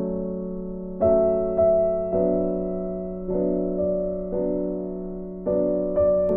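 Background music: a slow piano melody, with notes struck about once a second, each fading away.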